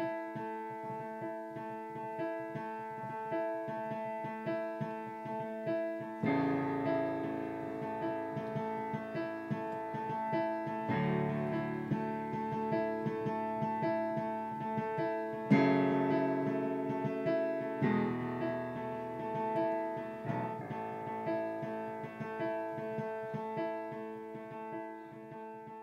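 Piano music without singing: held chords that change every few seconds over a steady pulse of repeated notes, beginning to fade out near the end.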